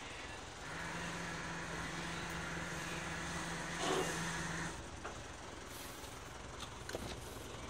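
Flatbed car carrier's winch motor running with a steady hum, pulling a non-running Chevrolet Tahoe up the loading bed; a brief louder noise comes near the end of the pull, and the winch stops after about four seconds, followed by a few light clicks.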